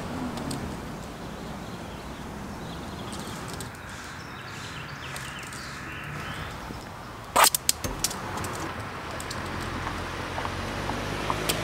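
Outdoor street ambience with a steady low traffic rumble that grows near the end. About seven seconds in there is one loud sharp click, followed by a few fainter clicks.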